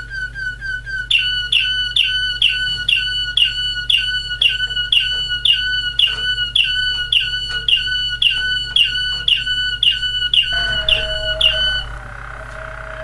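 Waterslager (Malinois) canary singing: a long run of short, evenly repeated notes, about three a second, that gives way a second or so before the end to a lower, drawn-out tone.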